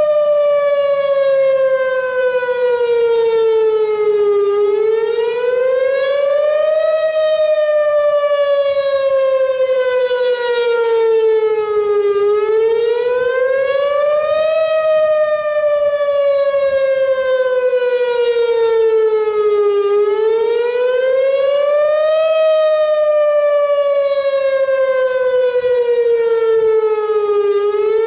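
Whelen WPS-2910 electronic outdoor warning siren sounding a wail during a routine test: the tone climbs over about two and a half seconds, then slides down over about five seconds, repeating three to four times.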